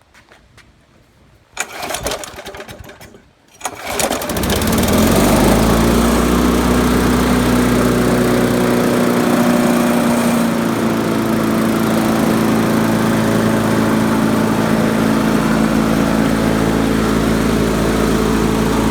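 Pull-started Briggs & Stratton Classic 4.5 HP single-cylinder lawnmower engine. About one and a half seconds in, a first pull sputters briefly without catching. About four seconds in, a second pull starts it, and it then runs steadily at a constant speed.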